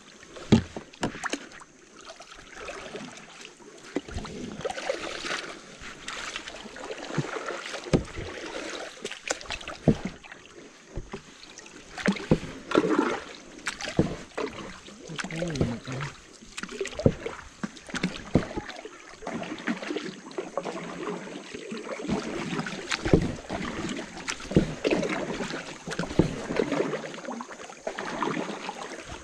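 Paddles working the water beside a small river boat, with splashing swells and scattered sharp knocks of wood against the hull.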